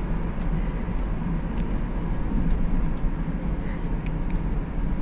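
Inside the cabin of a moving Hyundai H1 van: a steady low rumble of its gasoline engine and tyres on the road.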